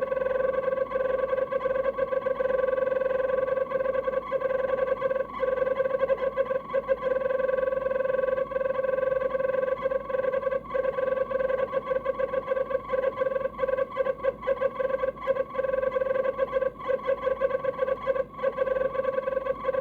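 Failing refrigerator-compartment fan motor in an LG DIOS Objet Collection fridge giving a steady whine with fainter higher tones above it, fluttering rapidly without let-up: the sound of the fan motor fault.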